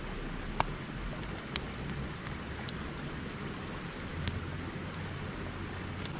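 Steady hiss of running water with a handful of sharp pops and crackles from a wood fire burning in a small camp stove.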